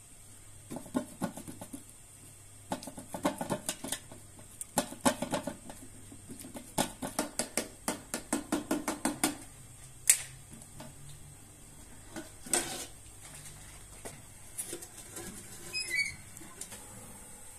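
Bread dough being pricked with a fork on a metal tray: quick runs of taps, the tines clicking against the metal. Near the end a small metal oven door squeaks open.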